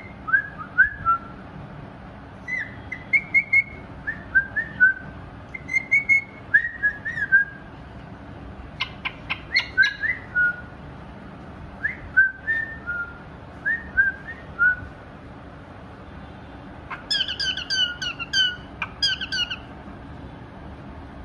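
Pied cockatiel whistling its song: short, gliding whistled notes in runs of two to four with brief pauses. Near the end comes a louder, harsher run of notes.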